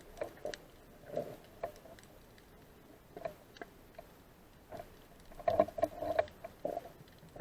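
Irregular soft clicks and knocks picked up underwater, scattered at first, then a quick cluster of them about five and a half seconds in.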